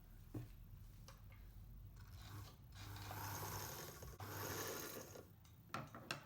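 Hands working a Singer 99 sewing machine: a few small clicks near the start and twice near the end, and about three seconds of rubbing mechanical noise in the middle.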